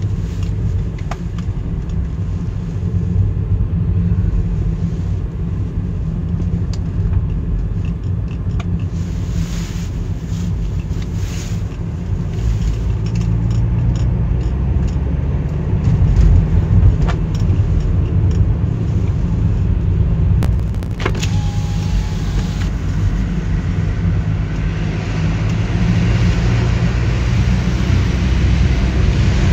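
Steady low rumble of a car's engine and tyre noise, heard inside the cabin while driving, with a few faint clicks.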